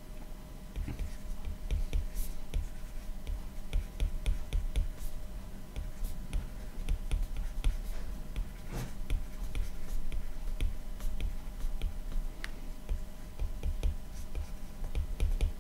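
A stylus tapping and scratching on a tablet's glass screen during handwriting: a continuous run of small irregular clicks and soft low knocks, over a faint steady hum.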